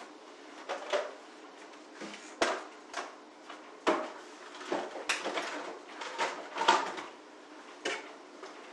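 Household objects being handled: a series of about a dozen sharp knocks and clunks at irregular intervals, like drawers, cupboard doors or things being set down.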